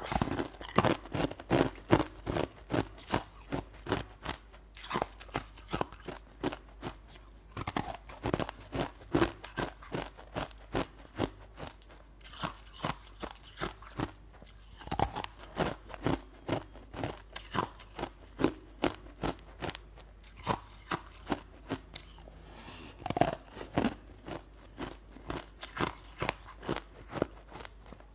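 A person biting and chewing a crunchy food close to the microphone: a quick run of sharp crunches, several a second.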